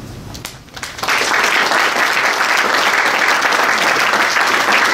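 Audience applauding, the clapping starting suddenly about a second in and then holding steady.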